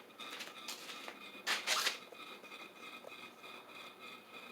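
Harbor Breeze Vector Elite ceiling fan running on high speed: a steady motor whine with a faint airy hiss, and a brief rush of noise about a second and a half in.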